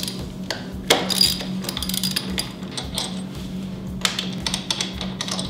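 Background music, with a few irregular sharp metallic clicks from a ratchet wrench and hands working loose the 14 mm mounting bolts of a motorcycle's front brake caliper.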